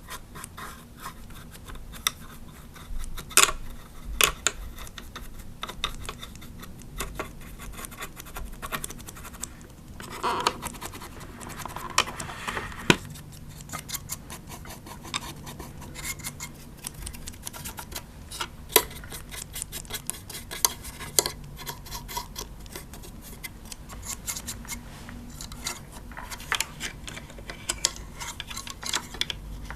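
Small brush scratching over a plastic animatronic decoration, its bristles flicking across the plastic in many small clicks, with a few sharper taps.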